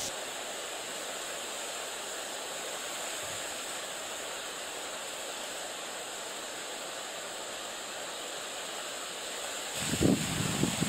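Steady wind hiss through reeds and over choppy water. Near the end, gusts start buffeting the microphone with low rumbling bursts.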